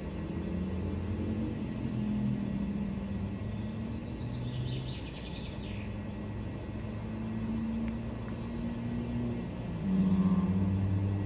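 Steady low rumble of a motor vehicle engine running, swelling louder about ten seconds in.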